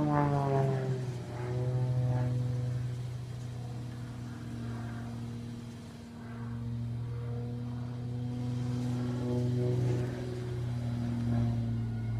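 Propeller airplane passing: its engine note drops in pitch in the first second as it goes by, then settles into a steady droning engine note that swells and fades a few times.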